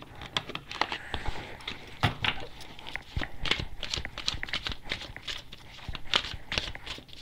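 A deck of cards being shuffled by hand: a quick, irregular run of papery flicks and slaps, with sharper slaps about two seconds and six seconds in.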